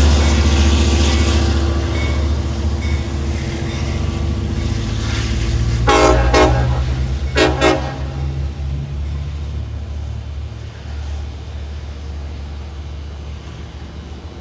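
Diesel train rumbling and fading as it pulls away, with two pairs of short horn toots about six and seven and a half seconds in.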